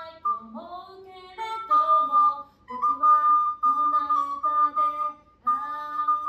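Soprano recorder playing a pop melody in held notes while a woman sings the same tune along with it an octave lower.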